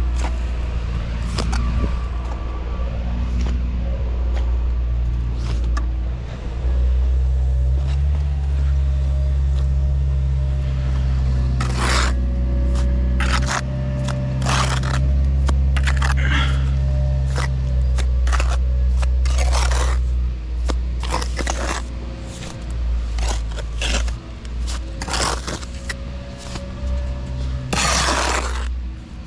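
A machine's motor running steadily with a low hum. Over the second half comes a run of sharp scrapes and clanks, some of them longer scraping strokes.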